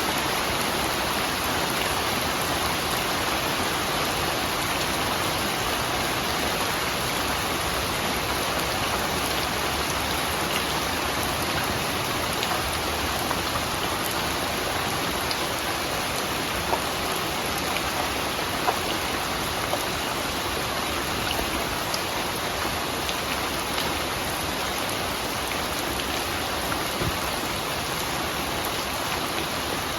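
Steady rain falling, an even hiss with a few sharper single drops standing out now and then.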